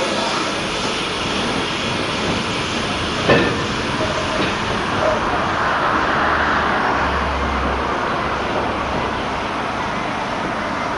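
Passenger coaches of a steam-hauled train rolling past just below, a steady train noise with one sharp knock about three seconds in.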